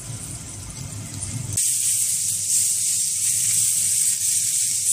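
Leek boxes pan-frying in oil, a steady loud sizzle that starts suddenly about one and a half seconds in as water is sprayed into the hot pan and turns to steam. Before it there is only a quieter low rumble.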